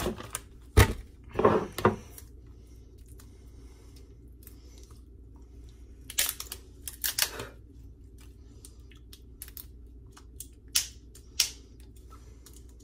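Scattered clicks, taps and short scrapes of a glass pickle jar being handled as its screw lid is twisted, with a sharp knock about a second in. The lid is hard to turn because the hands are wet.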